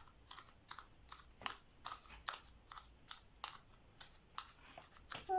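Faint, irregular clicking and tapping, about two to three soft clicks a second, as a pen is poked into a funnel to push flour down into a balloon.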